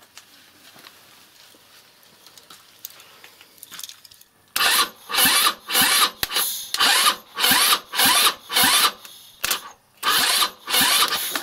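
A 161QMK scooter engine being cranked over in about ten short bursts, starting about four and a half seconds in, in a first start attempt after long storage.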